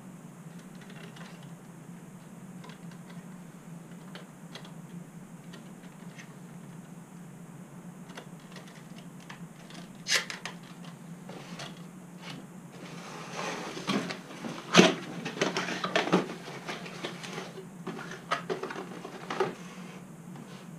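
Hands handling a small plastic 1:18-scale RC model truck: scattered light clicks and taps, with a louder stretch of clattering and rustling about two-thirds of the way through, over a steady low hum.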